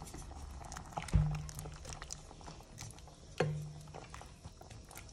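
Wooden spatula stirring fried mushrooms into a beef and tomato stew in a nonstick pot. It knocks against the pot twice, about a second in and again after three seconds, with small clicks of stirring in between.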